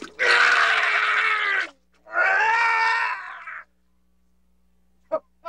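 A man screaming twice: two long, held cries of about a second and a half each, with a short pause between them.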